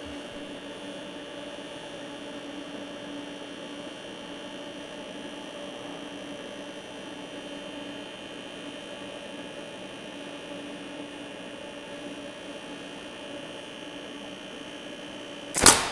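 Steady electrical hum with a thin high whine from a Thermal Arc 600 GMS welding power source, running under a 600-amp load through a micrometer used as a ground clamp. A short loud sound comes near the end.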